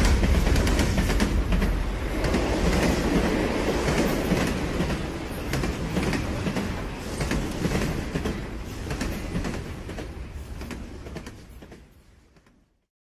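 Train running on rails: a steady rumble and hiss with irregular clicks, fading out over the last few seconds.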